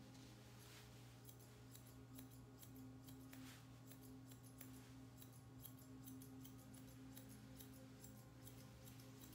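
Faint grooming shears snipping through a poodle puppy's coat in a quick, uneven run of light cuts, over a steady low hum.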